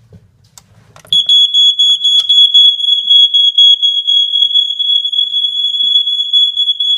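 Vintage First Alert smoke alarm sounding on test: a loud, steady, high-pitched tone that starts about a second in and holds without a break, showing the alarm works.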